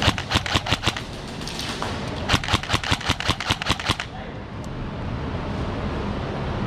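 Airsoft gun firing full-auto: two rapid bursts of sharp cracks, the first about a second long and the second about a second and a half, with a steady background hiss after them.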